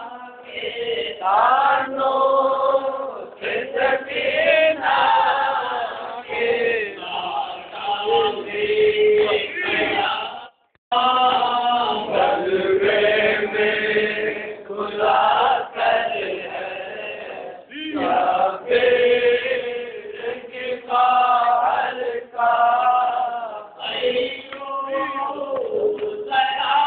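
Group of men and boys chanting a noha, a Shia mourning lament recited at matam, in unison in repeated sung phrases. The sound drops out for a moment about ten seconds in.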